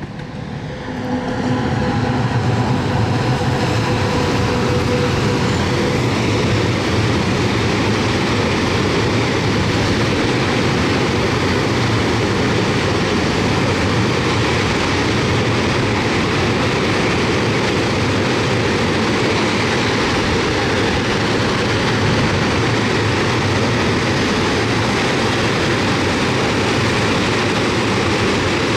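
Long freight train of tank wagons rolling past on the rails: a steady, loud rumble of wheels and wagons that builds over the first couple of seconds and then holds. A faint whine in the first few seconds fades away.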